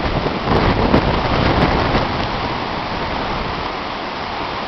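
Heavy rain falling in a tornadic storm's rain band, with gusty wind buffeting the microphone, stronger in the first two seconds and then settling into a steadier hiss.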